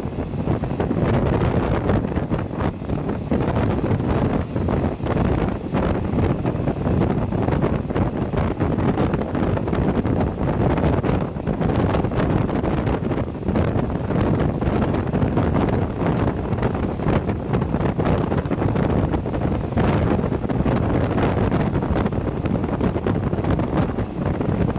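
Wind rushing and buffeting the microphone at the open doorway of a moving passenger train, over the train's steady running noise.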